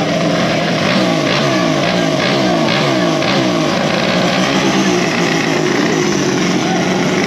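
Small two-stroke race scooter engine revving in a quick string of throttle blips, about two or three a second, then holding a steadier note. It is being blipped so the two-stroke doesn't load up while it waits at the line.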